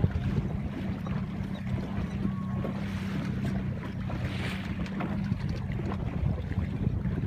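Wind buffeting the microphone over choppy sea water, with a low steady hum underneath during the first half and a short rush of water hiss about four and a half seconds in.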